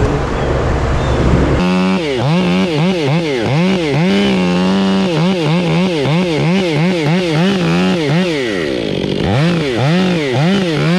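Two-stroke Stihl chainsaw cutting into a tree trunk, its engine pitch dipping and climbing back about twice a second as the chain meets and clears the wood, held steady at full speed for short stretches. It starts suddenly about a second and a half in, after a low rumble.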